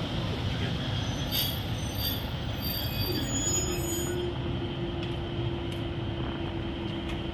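Class 150 Sprinter diesel multiple unit pulling away from the platform, its diesel engines running under power. Brief high squeals from the wheels on the rails come between about one and a half and two and a half seconds in, and a steady whine settles in from about three seconds.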